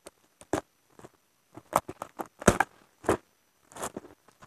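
Black plastic packing straps being pulled off a cardboard laptop box as the box is shifted and tipped: a string of short crackles and scrapes, the loudest about halfway through.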